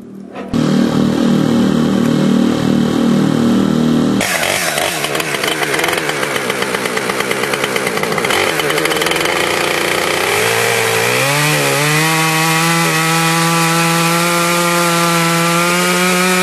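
Gas-powered saw of a sawmill running at high revs and cutting a log into a beam. It starts suddenly about half a second in, turns rougher about four seconds in, and from about ten seconds the engine pitch climbs steadily.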